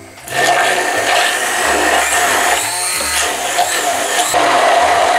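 Handheld immersion blender running steadily, puréeing softened asparagus stems with béchamel sauce in a tall beaker. It starts about a third of a second in.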